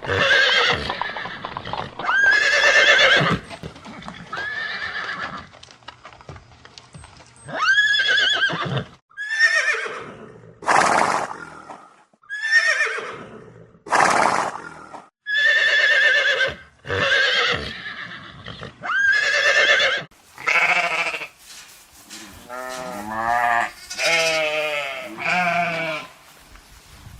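A series of separate animal calls, each about a second long with short gaps between. Many rise and then fall in pitch, and near the end the calls turn lower and wavering.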